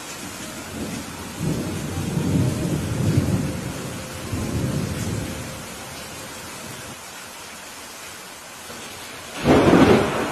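Steady rain with thunder rumbling low from about one to five seconds in, then a sudden, loud thunderclap near the end.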